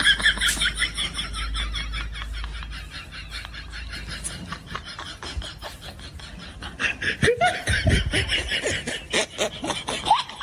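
Hearty laughter: a long run of fast ha-ha pulses that dips in the middle and grows louder again about seven seconds in.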